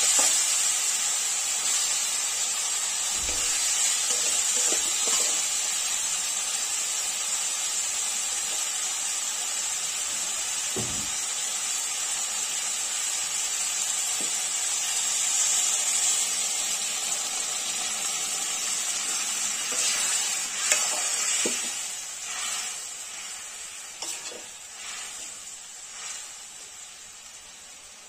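Chopped capsicum, tomato and onion sizzling as they fry in a metal kadai, with a metal spoon stirring and now and then knocking against the pan. The sizzle fades over the last several seconds as the mix turns saucy.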